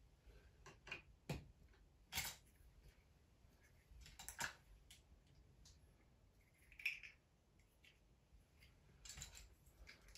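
Faint clicks and snaps of small Playmobil plastic parts being pressed together by hand, a handful of separate clicks a second or two apart.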